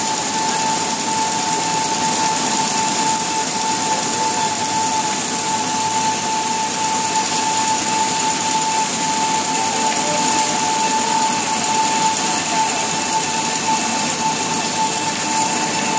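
Kraft paper slitter rewinder running steadily at speed, a loud continuous machine noise with a constant high whine and a hiss, as the paper web winds onto a roll.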